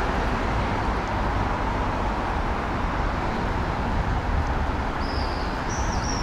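Steady city traffic noise with a low rumble. From about five seconds in, a small bird chirps in a quick series of short, slightly falling high notes.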